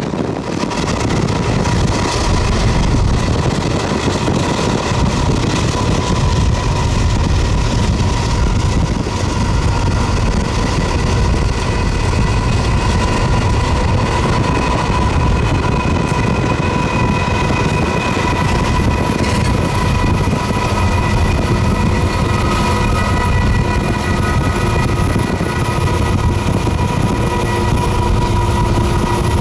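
Freight train rolling past: a loud, steady rumble of steel wheels on the rails, with thin steady squealing tones above it.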